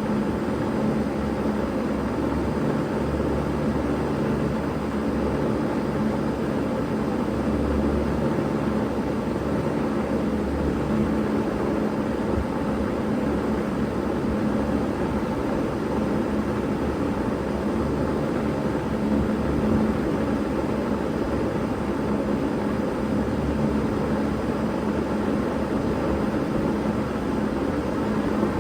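2000 Bard 3-ton wall-hung heat pump running steadily in heat mode: a constant low hum over a rushing, airy noise, with no change in level.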